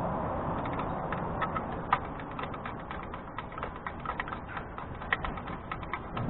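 Hose clamp around a patched exhaust pipe being tightened with a screwdriver: a run of small, uneven clicks, several a second, with a sharper click about two seconds in and another about five seconds in.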